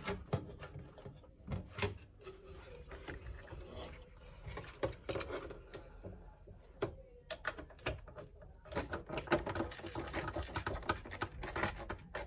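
Irregular plastic clicks, taps and rubbing as a pair of linked Lian Li SL120 fans is handled and pushed into place against the PC case and its cables.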